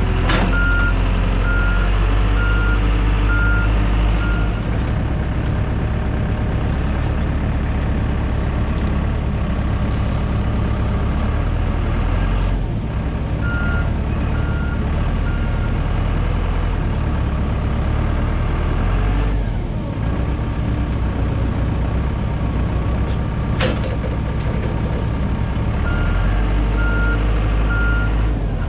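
A compact heavy-equipment engine runs steadily while a reversing alarm beeps in three spells: at the start, near the middle and near the end. The engine's note shifts as the machine moves. There is one sharp click late on.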